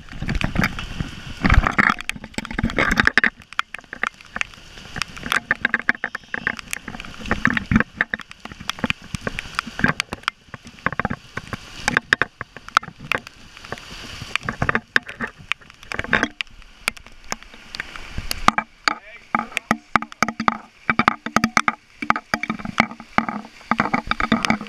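Storm floodwater rushing and splashing along a street, with water gushing up out of an overflowing drain, and many irregular knocks of spray and rain hitting the microphone.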